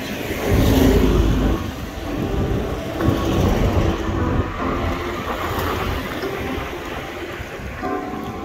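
Traffic and road rumble heard from a moving bicycle, swelling loudest about a second in as an oncoming van passes close by. Music plays faintly underneath.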